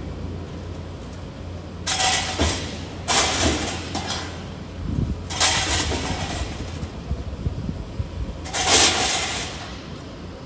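Construction-site machinery: a steady low engine rumble with four loud hissing bursts, each about a second long.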